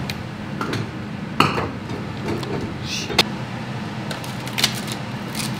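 Kitchen dishes being handled: a cupboard door and a plate set down on a stone counter, giving a few sharp knocks and clinks. The loudest knock comes about a second and a half in, and a short ringing clink of the plate comes around three seconds.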